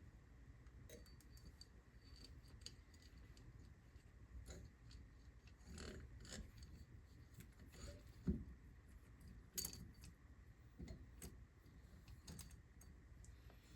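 Faint, scattered clicks and clinks of small metal engine parts and tools being handled, with a sharper knock about eight seconds in.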